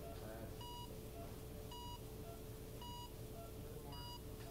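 Hospital patient monitor beeping at an even pace, four short beeps a little over a second apart, over a faint steady hum.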